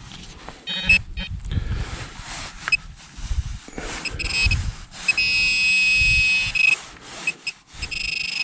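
Handheld metal-detecting pinpointer probing loose soil, sounding a steady high electronic buzz as it finds a metal target: brief blips early on, then a long tone of about a second and a half around five seconds in, and another from near the end. Soil rustles and scrapes around the probe between the tones.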